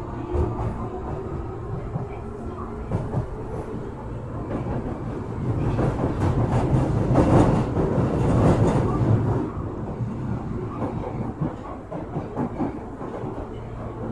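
Osaka Metro 23 series subway train running underground, heard from inside the car. A faint rising whine from its Hitachi IGBT inverter fades out in the first second, leaving wheel-and-rail running noise with scattered clicks that swells to its loudest about six to nine seconds in, then eases off.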